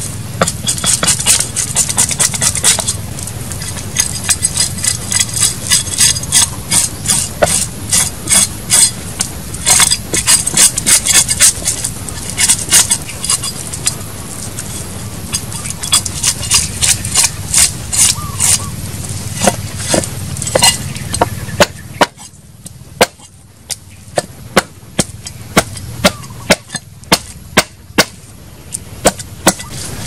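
Cleaver blade scraping the scales off a climbing perch on a wooden chopping block: quick runs of sharp scraping strokes, thinning near the end to separate strokes about one a second.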